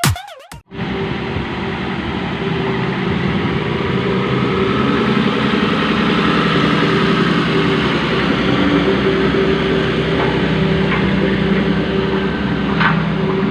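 Road roller's engine running steadily, with a brief high squeak near the end. The last beats of electronic music cut off just before the engine sound starts.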